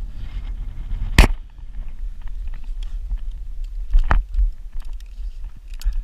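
Low rumble on the microphone, with a few sharp knocks: a loud one about a second in, another about four seconds in and a smaller one near the end. They come as a climber handles and pushes off a freshly sawn section of tree trunk at the top of the tree.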